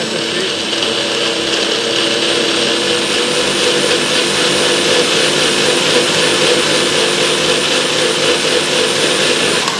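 NutriBullet personal blender running at full speed, its cup held down on the motor base, blending a fruit, almond and plant-milk smoothie. The motor sound is loud and steady and begins to wind down right at the end.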